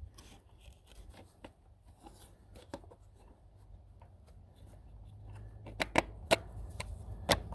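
Small clicks and rattles of a cordless chainsaw's chain and bar being handled and fitted by hand, with a few sharper clicks about six seconds in and again near the end.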